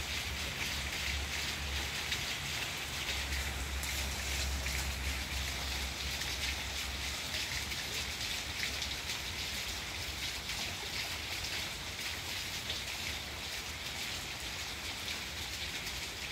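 Steady rain falling on garden plants, an even hiss made of many tiny drop patters. A low hum sits underneath and fades about seven seconds in.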